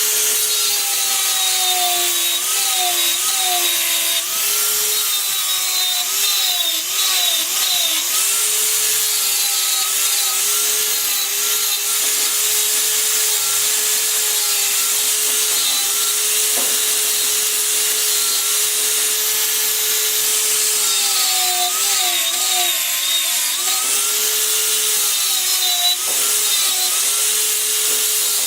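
Electric power tool working wood: a steady motor whine that sags in pitch again and again as the tool loads up in the cut, over a continuous rasping cutting noise.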